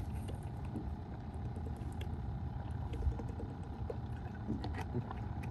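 A boat motor running steadily at low speed: a low rumble with a faint steady hum, and a few light clicks over it.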